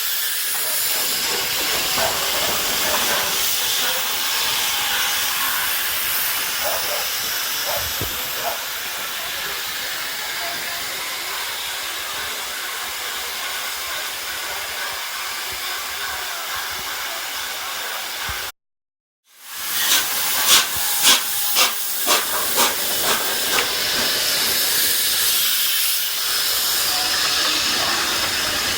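Steam locomotive 60163 Tornado, a three-cylinder A1 Pacific, with steam hissing steadily. After a short break comes a run of sharp, evenly spaced beats, about two a second, that die away into steady hiss again.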